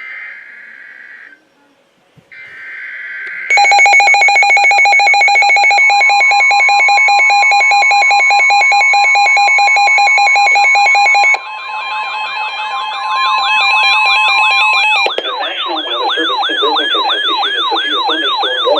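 NOAA Weather Radio alert: the last two bursts of the SAME header's screechy digital data tones, then weather radio alarms going off. A loud, rapidly pulsing beep starts about three seconds in, with the steady 1050 Hz warning alarm tone under it. From about eleven seconds, rising-and-falling siren-like sweeps take over and grow louder near the end, heralding a severe thunderstorm warning.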